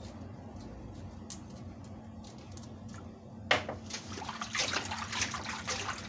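Water running and splashing into a container, starting abruptly a little over halfway through after a stretch of low steady hum and faint clicks. This is water drawn to soak an ingredient.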